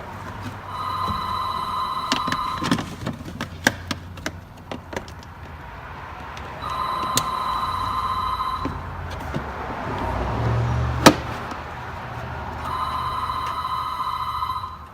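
A telephone rings three times, each ring a warbling two-tone electronic trill about two seconds long, repeating every six seconds. Between the rings come scattered plastic clicks and knocks as a new cabin air filter and its access door behind the glove box are fitted, with one sharp snap about eleven seconds in.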